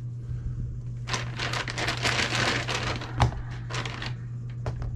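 Plastic packaging crinkling and rustling as it is handled and opened, with many small clicks and one sharp knock about three seconds in. A steady low hum runs underneath.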